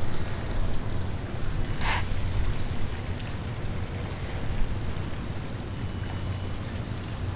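Steady outdoor background noise with a low rumble and no clear source, and a short hiss about two seconds in.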